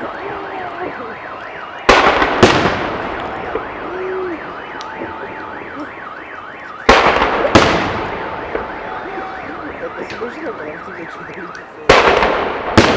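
Fireworks salute: three pairs of loud booms about five seconds apart, each pair a boom followed about half a second later by another, with a fading rumble after. Underneath, a car alarm warbles up and down steadily.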